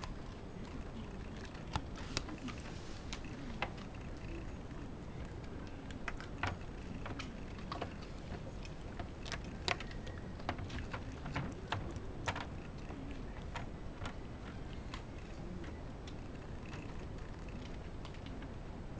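Shiba Inu gnawing on a hard cowhide chew: irregular sharp clicks of teeth working on the chew.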